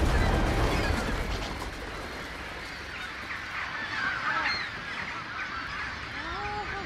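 A huge flock of birds calling all at once as it flies off, a dense mass of short overlapping cries. It opens over a deep low rumble that fades within the first second or two.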